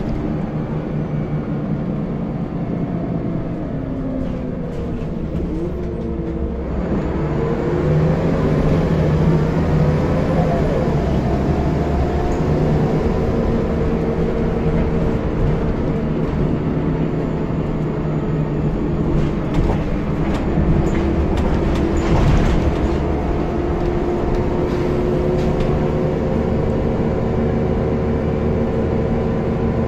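Scania L94UB single-deck bus running, heard from inside the passenger saloon: the engine note falls about five seconds in, climbs again as the bus picks up speed, then settles to a steady drone. A few knocks and rattles come through about two-thirds of the way in.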